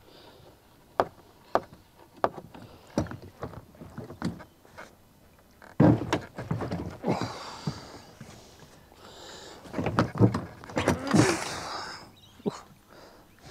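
Handling knocks and clunks as a small Honda four-stroke outboard motor is worked off a dinghy's transom and lifted aboard: scattered light knocks and clicks, with two louder rough scuffing bursts about six and ten seconds in. The outboard is not running.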